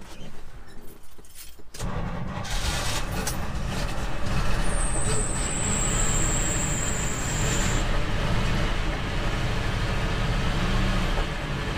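1988 Chevy R30 dump truck's carbureted engine catching almost at once, about two seconds in, and then running steadily. It starts easily now that the carburetor's accelerator pump is fixed and fuel has reached the bowl. A thin high whistle sounds for about three seconds in the middle.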